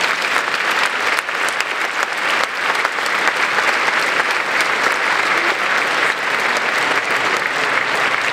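Large audience applauding steadily: many hands clapping at once in a continuous, even wash.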